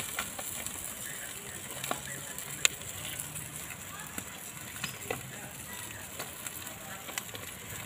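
Fish sizzling and crackling over the fire on a wire grill grate, with metal tongs clicking against the grate and fish as they are turned. One sharper click comes about two and a half seconds in.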